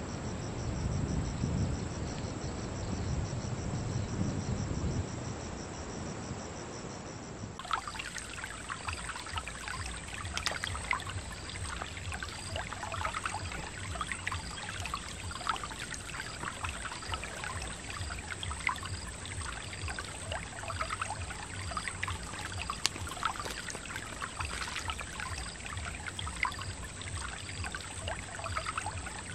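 Wind rumbling on the microphone with insects trilling, then, after a cut about eight seconds in, shallow stream water trickling at the bank with a steady high insect drone and a short chirp repeating about once a second.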